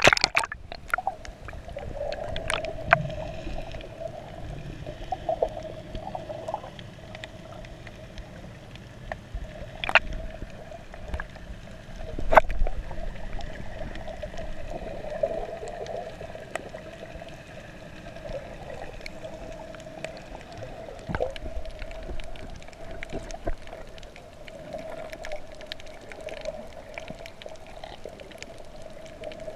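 Sound picked up underwater by an action camera while snorkeling: a steady hum with scattered sharp clicks and knocks, and a louder stretch about twelve seconds in.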